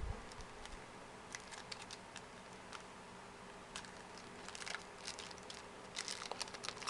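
Faint clicks and light rustling of trading cards and a foil pack wrapper being handled, getting busier near the end as a new pack is worked open.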